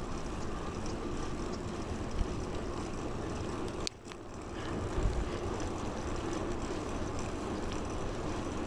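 Steady wind and road rumble on a clip-on lapel mic while riding a bicycle, dipping sharply for a moment about four seconds in.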